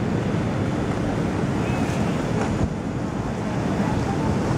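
Wind buffeting the microphone over the steady rush of water along the hull of the paddle steamer Stadt Rapperswil under way, with one brief knock about halfway through.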